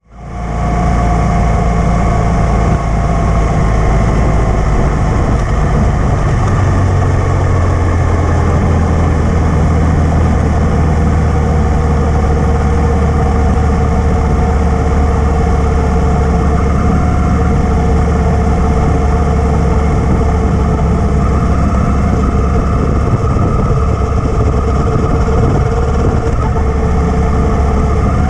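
Motorcycle engine heard from on board while riding, running at a steady cruising speed with its pitch drifting slightly up and down.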